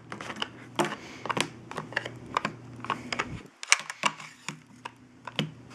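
Clear plastic embossing folder being flexed and handled on a tabletop: light, irregular plastic clicks and taps, several a second.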